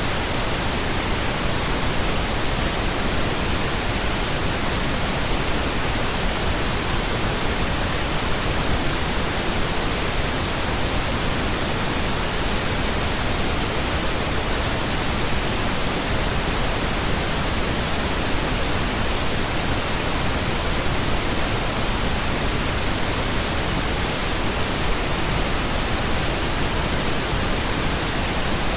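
Pink noise: a steady, even hiss that spreads across all pitches, unchanging throughout.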